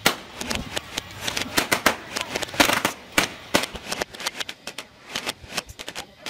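Homemade motorised balloon-popping machine bursting a string of inflated balloons one after another: a rapid, irregular run of sharp pops.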